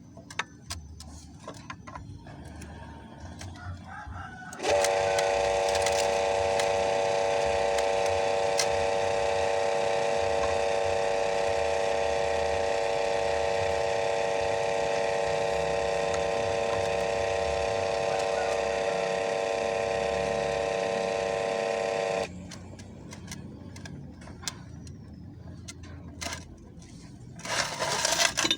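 Electric water pump motor switched on and running with a steady hum for about seventeen seconds, then switched off; light clicks and handling of parts before and after, and a brief scraping burst near the end.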